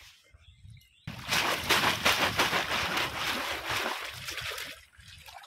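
Water splashing and streaming as a woven bamboo fish trap is hauled up out of a shallow stream, starting about a second in and dying away near the end.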